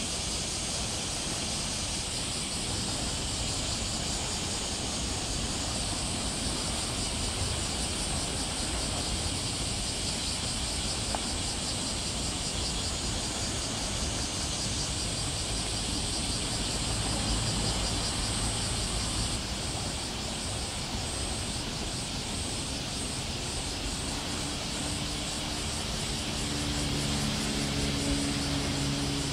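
Steady outdoor background noise: a low rumble under a constant high-pitched hiss, with a low droning tone joining in about 24 seconds in.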